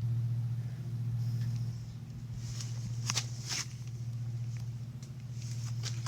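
A steady low hum throughout, with a few light clicks and rustles of handling about halfway through and near the end.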